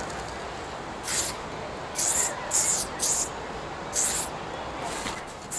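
Spray paint hissing out in about five short bursts, roughly a second apart, over a steady background hiss.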